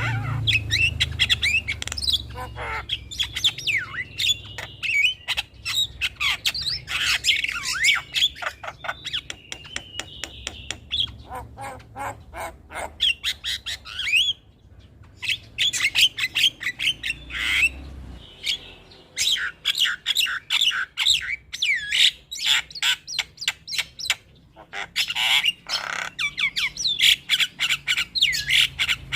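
Javan myna (jalak kebo) chattering and squawking: fast runs of harsh clicking notes mixed with whistled glides, broken by two short pauses.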